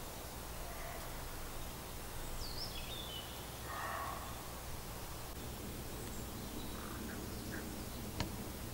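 A crow cawing once about four seconds in, with a short whistled bird call just before it, over a steady background of woodland noise. A sharp click near the end.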